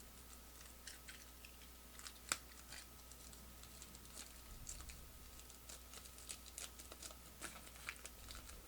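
Faint, irregular light clicks and taps of trading cards being handled and sorted, with one sharper click about two seconds in.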